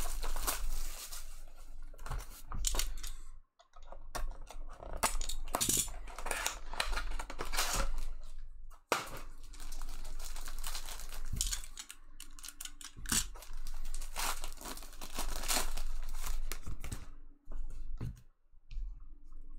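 Cellophane wrapper and a foil trading-card pack crinkling and tearing as they are opened by hand, in irregular bursts with short pauses.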